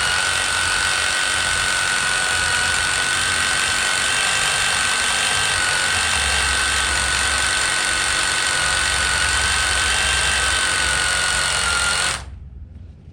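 Hammer drill boring into hard concrete to make an anchor hole, running steadily at one constant pitch and cutting off near the end.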